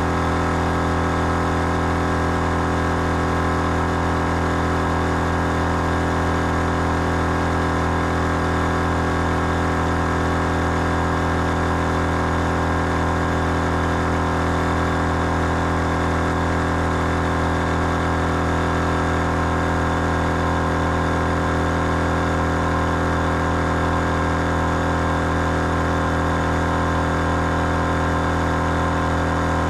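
Big Red Gear twin-head 12 V air compressor running steadily under load, a constant mechanical drone as it inflates four 4x4 tyres at once from flat through the Quad-Flate kit.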